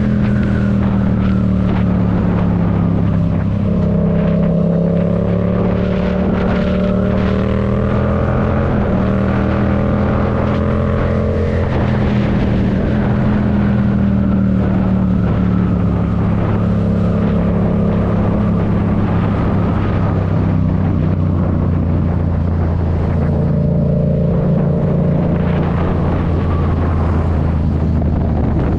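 Yamaha MT-07's 689 cc parallel-twin engine, A2-restricted to 35 kW and breathing through a Black Widow aftermarket exhaust, running at a fairly steady cruise with slow, gentle rises and falls in engine speed.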